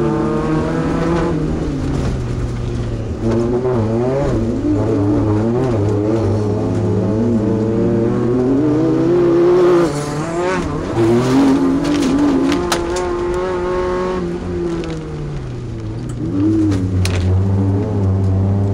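Class 2 off-road race truck engine at full race pace, its pitch climbing and dropping again and again as it revs up and backs off. Several sharp knocks and rattles come partway through.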